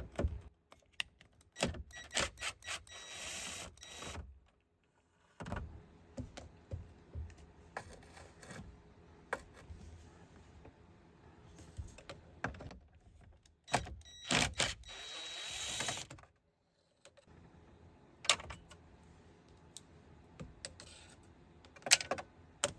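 A socket wrench on a long extension clicking and clinking in bursts as 7mm screws under the instrument cluster are backed out, with the metal tool knocking and rattling against the dash between the turns.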